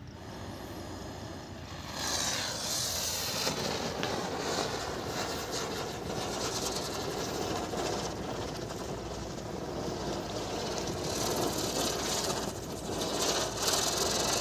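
Chakri ground-spinner firework catching about two seconds in and burning with a steady, rushing hiss as it sprays sparks.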